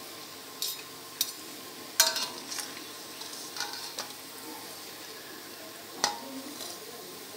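Wire spider skimmer clinking and scraping against a metal kadhai as fried mathri strips are scooped out of the oil, with the hot oil sizzling faintly underneath. Several sharp clinks, the loudest about two seconds in and again about six seconds in.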